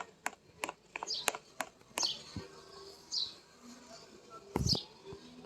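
A bird chirping briefly four times among a run of sharp clicks and light taps, with a duller thump near the end.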